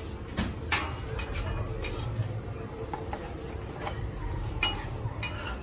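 A steel spatula scraping and clicking against a flat griddle as pieces of uttapam are lifted off it: a string of short, sharp metallic clinks at uneven intervals over a low steady background rumble.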